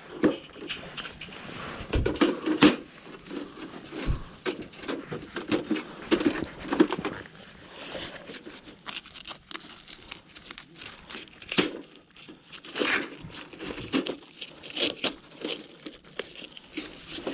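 Camp gear being handled and packed away: irregular clicks, light knocks and crinkling, with a few louder knocks.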